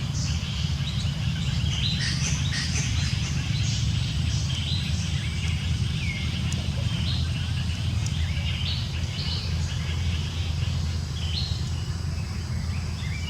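Steady low rumble with many short, high chirping calls from birds scattered over it, some of the calls falling in pitch.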